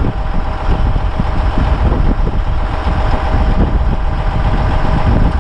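Large diesel engine idling steadily: an even, loud low rumble with a faint steady tone over it.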